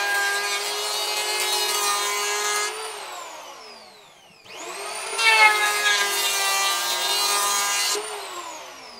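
Total TL7508226 750 W electric hand planer shaving the edge of a jati Belanda board at half a millimetre depth of cut, in two passes. Each pass is a rough shaving noise over the motor's whine. The motor winds down with a falling whine about 3 s in, spins up again about 4.5 s in and winds down once more near the end.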